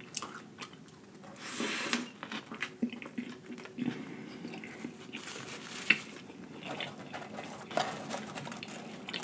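Close-up chewing of a big bite of burger, with wet mouth smacks and clicks every second or two.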